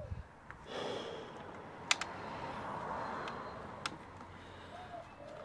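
Hands working on a motorcycle's plastic fairing and its bolts: a few sharp clicks, two of them louder, over a soft rushing noise that swells and fades.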